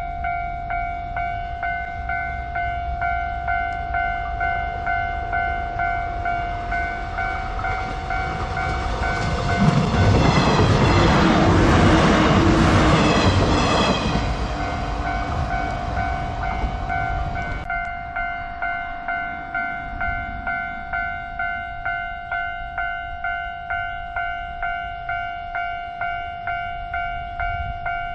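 Japanese level-crossing warning bell ringing in a steady, rhythmic repeating tone. About ten seconds in, a train passes over the crossing for around eight seconds, its wheels and running gear loud on the rails and briefly drowning out the bell.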